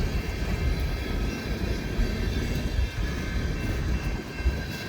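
Empty coal hopper cars rolling past, a steady rumble of wheels on rail with a faint, steady high-pitched whine above it.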